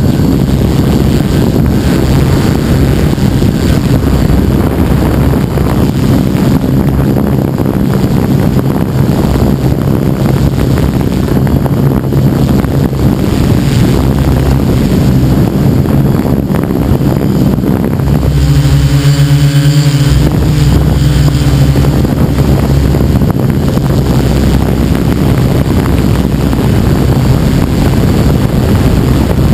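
Tarot 690S hexacopter's six electric motors and propellers droning steadily, recorded from the camera on the airframe, with wind buffeting the microphone. About two-thirds of the way through, the motor hum briefly turns clearer and more tonal.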